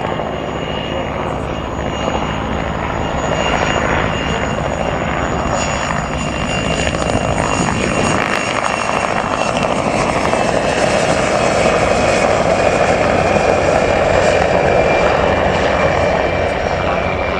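Mil Mi-2 helicopter in flight: its twin Isotov GTD-350 turboshaft engines whine steadily over the beat of the main rotor blades. It grows louder about halfway through as the helicopter passes close.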